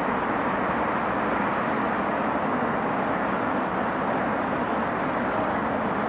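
Steady vehicle and road noise: an even, unbroken rush.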